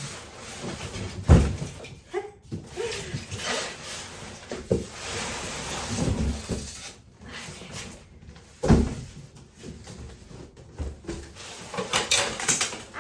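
Mamaroo baby swing's parts and packaging tipped out of their cardboard box: two heavy thuds, about a second in and near nine seconds, with rustling, scraping and knocking of packaging between them and a quick run of knocks near the end.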